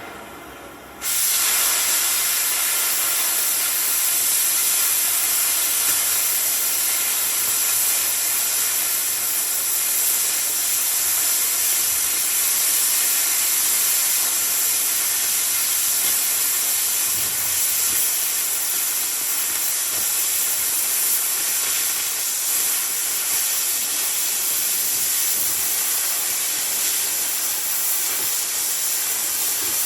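Cutting torch blowing through steel: a loud, steady hiss that starts suddenly about a second in as the cut begins and holds evenly.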